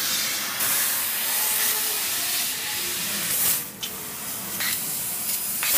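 Fiber laser cutter cutting sheet metal: a steady hiss of the assist-gas jet and cutting spray at the nozzle. It drops away briefly about three and a half seconds in, and there is a short sharp pop near the end.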